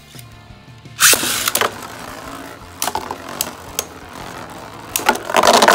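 Beyblade Burst spinning tops in a plastic stadium: a second top is launched in with a loud rush about a second in. Then the two tops spin and clack against each other several times, ending in a long loud clash near the end.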